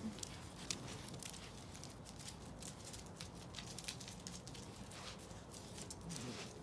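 Faint, irregular clicking and pattering of puppies' and dogs' paws and claws on asphalt during rough play.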